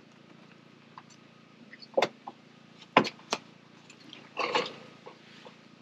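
A few sharp knocks and clicks over a faint steady hum, then a short scuffing rustle about four and a half seconds in.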